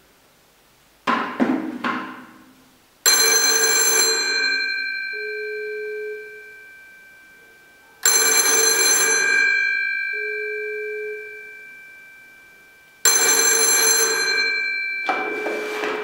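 Bell of a 1975 RWT rotary-dial telephone ringing: a short softer burst about a second in, then three loud rings about five seconds apart, each a second or two of rapid striking whose metallic tones linger and fade. Near the end a clatter as the handset is lifted.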